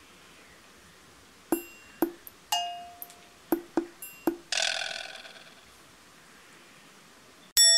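Video-editing sound effects: about seven quick plinks, each with a short ring, over roughly three seconds, then a brief shimmering chime. Near the end comes a loud bell-like ding that rings on.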